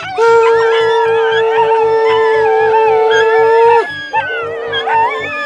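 Dogs howling in wavering, gliding voices over a long steady held tone. The tone holds for about three and a half seconds, drops away, then returns more weakly. A regular low beat of about five pulses a second runs underneath.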